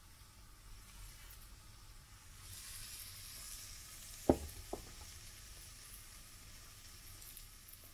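Pancake batter sizzling in hot fat in a frying pan; the sizzle grows louder about two and a half seconds in. A little past the middle come two sharp knocks, the first loud and the second softer, just after it.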